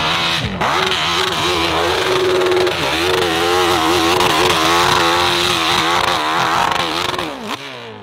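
Dirt bike engine revving hard under load on a steep hill climb, its pitch rising and falling as the throttle is worked; near the end the revs fall away.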